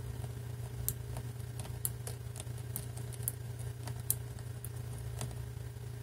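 Number dials of a Masterlock 651 brass combination padlock being turned step by step with a knife blade pressed against them, giving faint irregular clicks while the blade is felt for a notch. A steady low hum runs underneath.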